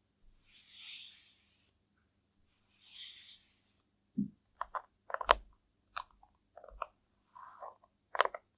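ASMR makeup sound effects: two soft airy hisses, then from about four seconds in a quick run of sharp clicks and short crackles, loudest near the end.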